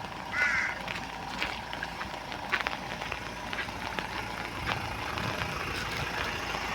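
Vehicle engine idling steadily, with scattered light clicks and a brief warbling tone about half a second in.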